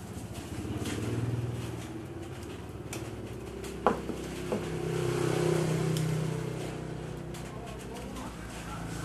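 Two sharp clicks about four seconds in, from a small screwdriver and fingers working the plastic terminal block of a panel wattmeter. Under them runs a low, steady hum that swells twice.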